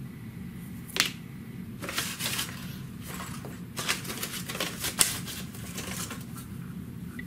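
Short, irregular scratchy strokes of a fine abrasive stick rubbed along the edge of a texturizing shear blade, with a few sharp clicks of metal, the loudest about a second in and near the middle. This is light honing to smooth any roughness on the edge.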